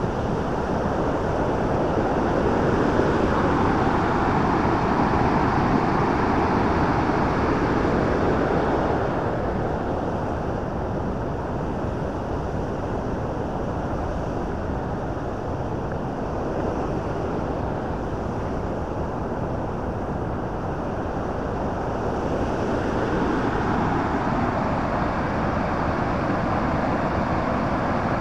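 Bow Falls on the Bow River: the steady rush of falling water, swelling a little for several seconds about two seconds in and again near the end.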